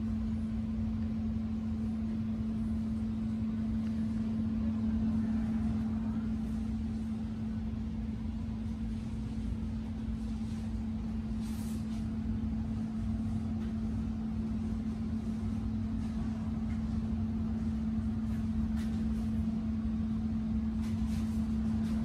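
Steady machine hum inside a large shop: a constant low drone with one unchanging tone, with faint brief rustles about halfway through and near the end.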